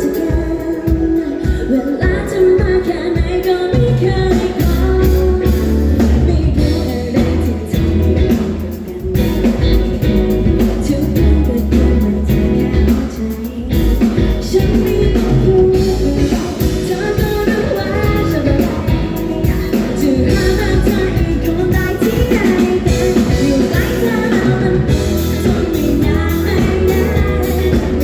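A female singer performing a pop-rock song live, amplified through a sound system over a loud accompaniment with a steady drum beat, heavy bass and guitar.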